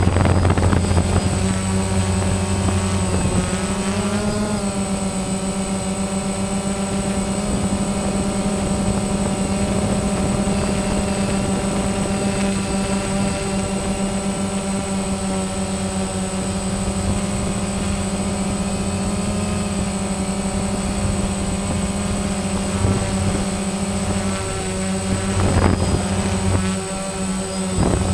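DJI Phantom quadcopter's motors and propellers whirring steadily in flight, heard right at the airframe from the onboard camera. The pitch shifts slightly about four seconds in and again near the end as the drone manoeuvres.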